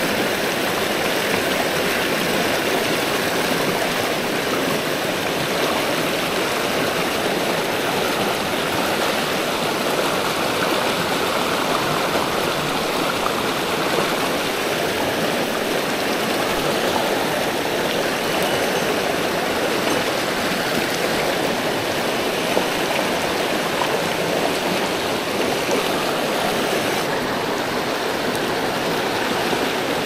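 Mountain stream rushing over rocks: a steady, even water noise.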